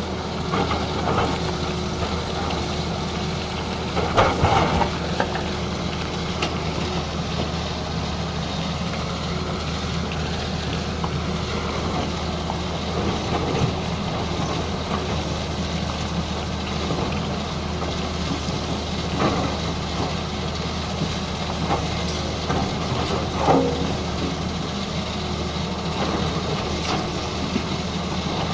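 Excavator engine running steadily at a constant drone, with several short, sharp knocks of metal working over it; the loudest comes about four seconds in.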